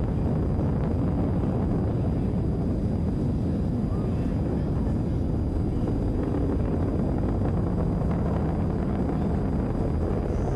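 Falcon 9 Block 5 first stage's nine Merlin 1D engines heard from the ground during ascent after liftoff: a steady, deep, crackling rumble with no breaks.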